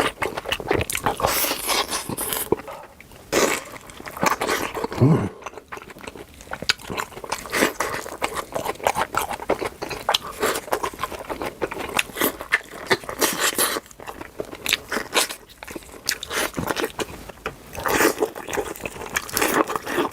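Close-miked crunchy eating: biting and chewing crisp food, a rapid run of crunches with a few short pauses.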